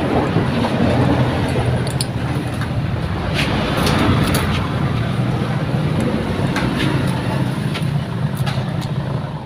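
A steady low mechanical drone, like a vehicle running nearby, with a few light metallic clicks from a spark-plug socket being turned and pulled off a motorcycle engine's cylinder head.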